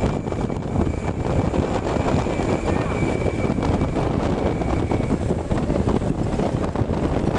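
Wind buffeting the microphone of a moving bus, mixed with the steady rumble of the bus and the road. A faint steady high whistle fades out about two-thirds of the way through.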